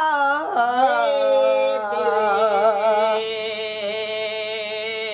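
A woman singing one long held note with a wavering vibrato; the pitch slides at first and drops a step about two seconds in.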